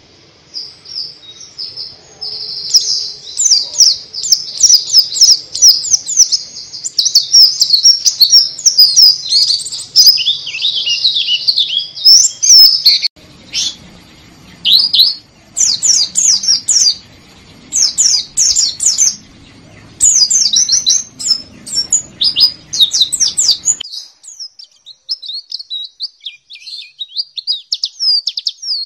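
White-eye (pleci) singing a fast, high-pitched twittering song of rapid chirps. One long unbroken run is followed by shorter phrases with gaps, then a thinner, quieter twitter near the end. It is a lure recording meant to prompt a silent caged bird to sing.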